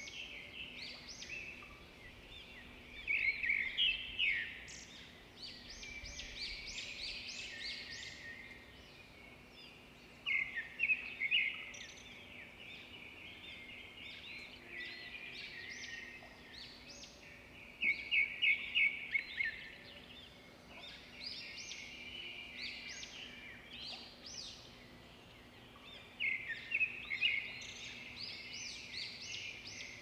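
Budgerigars chattering and chirping without pause, with louder bursts of quick repeated chirps about every eight seconds.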